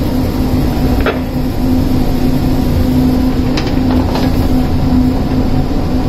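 Steady machinery drone with a constant hum and a low rumble, typical of a ship's machinery space, with a few faint clicks about a second in and around three and a half to four seconds in.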